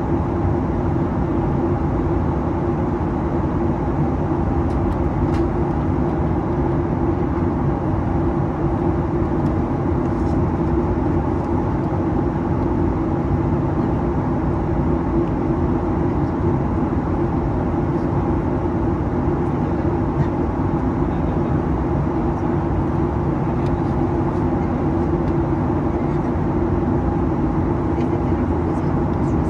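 Steady cabin noise inside a Boeing 737-800 airliner: an even drone from its CFM56-7B engines and the air around the cabin, with a constant hum and no change in pitch or level.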